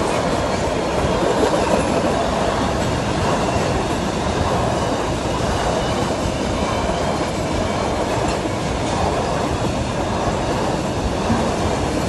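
Freight train wagons rolling past, a steady rumble and clatter of steel wheels on the rails.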